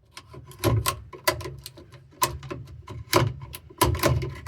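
M&M shifter for a TH400 automatic being worked by hand through its gates and lockouts: a rapid, irregular series of sharp clicks and clunks from the lever and its detents.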